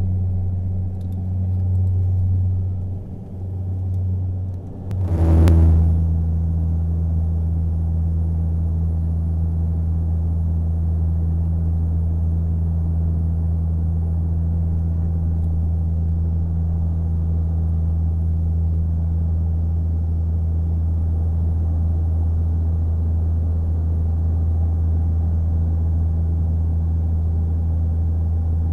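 Jet airliner cabin noise during the climb: a loud, low engine-and-airflow drone that swells and dips for the first few seconds, then holds steady. There is a brief loud crackle about five seconds in.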